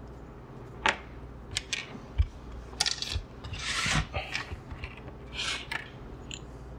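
Handling noises at a workbench. Small plastic servos and parts click and knock onto a cutting mat, and near the middle an EPP foam wing is slid across the mat with a rubbing scrape, the loudest sound.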